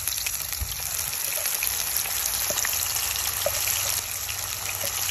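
Pieces of fish deep-frying in hot oil, a steady sizzle with many small scattered pops and crackles.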